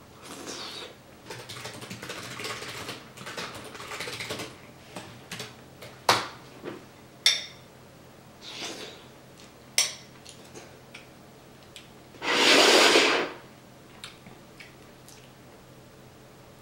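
Metal spoon scraping in a stone pot and ceramic bowl of stew, then three sharp clinks of spoon on the dishes, with quiet eating sounds between. About twelve seconds in comes a loud rustling burst lasting about a second.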